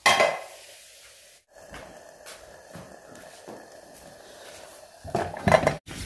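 Metal frying pan and plate clanking together as food is served out, a loud clatter at the start, then quieter clinks and scrapes of a utensil, and more loud knocks about five seconds in.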